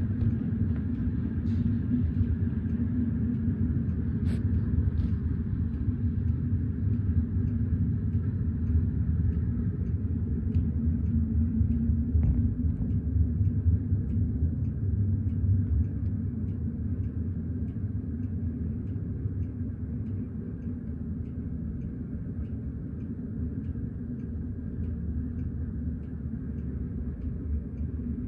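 Freight train of tank cars rolling past, a steady low rumble that eases slightly in the second half, with faint regular clicking above it.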